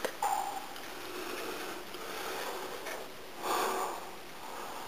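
A person breathing through the nose, with one short, louder sniff or breath about three and a half seconds in, over a faint steady hiss.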